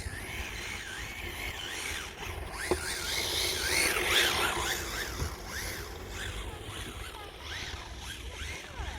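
Radio-controlled car's motor whining, its pitch rising and falling over and over with the throttle, loudest about four seconds in.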